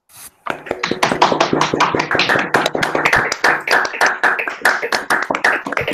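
Hands clapping in applause, a quick, uneven run of claps starting about half a second in.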